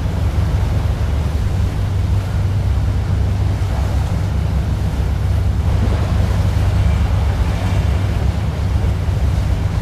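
Boat under way: its engine running as a steady low drone, with rushing water and wind over it.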